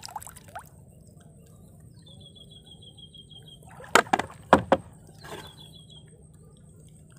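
Four sharp knocks in under a second, a little past the middle, as empty plastic-bottle floats are handled and set down in a small boat. Before them comes a high, rapid chirping trill.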